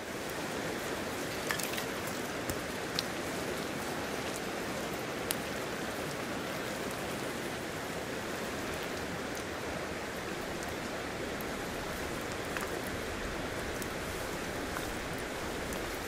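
Mountain river rushing steadily, with a few sharp clicks scattered over it.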